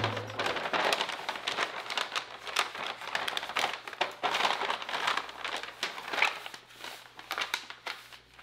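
Rapid, irregular crinkling and crackling, like something being handled, over a faint steady low hum.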